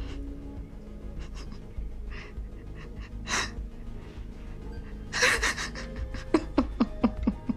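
A woman's tearful, breathy laughing and gasping over a low, sustained film score, ending in a quick run of short laughing breaths.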